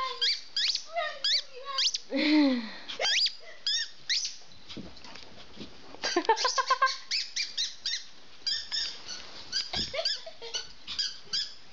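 A small dog yipping and squealing in rapid runs of short, high-pitched calls that bend in pitch, with a lower drawn-out whine about two seconds in.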